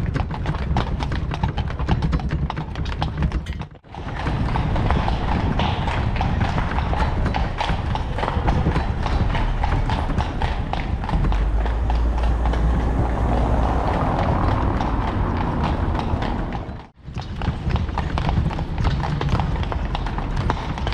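Horse hooves clip-clopping steadily as a horse-drawn carriage moves along, the hoof strikes coming in a quick even rhythm. The sound drops out briefly twice.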